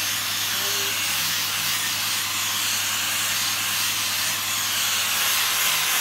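Electric angle grinder with a sanding disc running steadily, sanding a wooden knife handle: a continuous hiss over a low motor hum.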